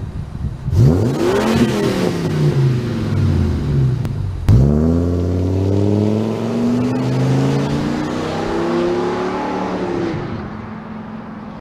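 Ford Econoline van's V10 engine accelerating as the van pulls away. It revs up under a second in, the note drops abruptly about four and a half seconds in and then climbs steadily, fading near the end as the van moves off.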